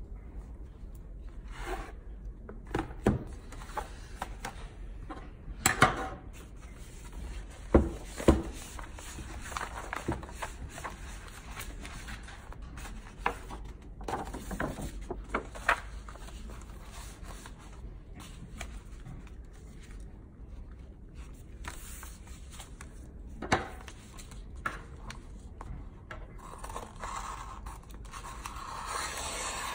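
A book's paper dust jacket and a roll of clear plastic covering film being handled on a table: rustling and sliding with scattered sharp taps and knocks. Near the end, scissors begin cutting the film with a steady rasping snip.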